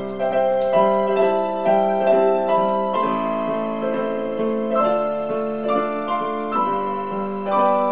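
Slow piano music: a melody of single notes over held chords.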